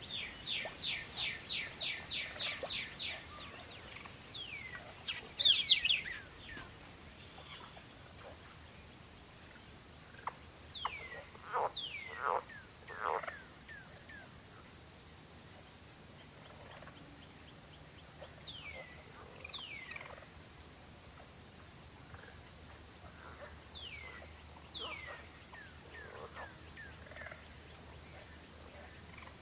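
Crickets chirping in a steady, continuous chorus at dusk. Birds call over it with short falling notes: a fast run in the first few seconds, a few louder calls about a third of the way through, and scattered calls after that.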